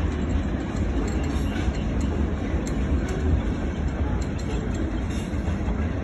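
Freight train of boxcars rolling past, a steady low rumble of wheels on the rails.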